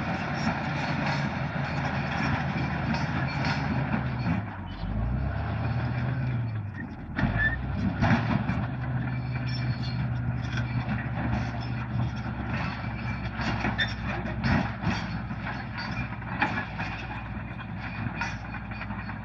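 Bulldozer's diesel engine running, its pitch dipping and rising again twice around the middle, with scattered clanks and knocks throughout.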